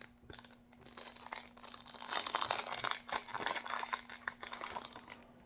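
Foil booster-pack wrapper crinkling and tearing as a trading-card pack is opened, a dense crackling rustle that starts about a second in and eases off near the end.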